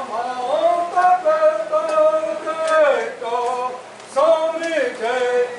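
A man singing a slow, drawn-out melody, holding long notes that slide up and down in pitch.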